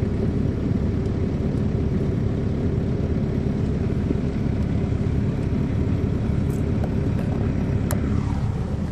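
Caterpillar C13 ACERT diesel engine of an MCI D4500CL coach running at a steady speed, heard from inside the bus as a deep, even drone.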